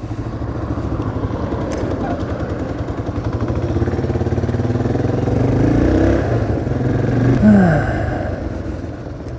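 Motorcycle engine running at low revs at a stop, then pulling away: the revs climb steadily from about the middle and drop sharply once near the end.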